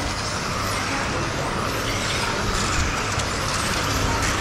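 Electric 1/10-scale modified touring cars with brushless motors whining in passing glides as they run laps, over a steady background hiss.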